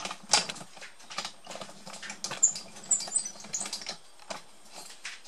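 Irregular light clicks, taps and rattles from a camera mount being handled and raised, with a few short high squeaks about halfway through.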